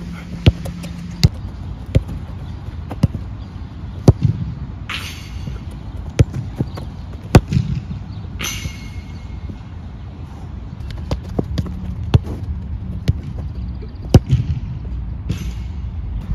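A football being kicked repeatedly on artificial turf: sharp thuds of strikes and touches every second or so, with fewer kicks for a stretch a little past halfway.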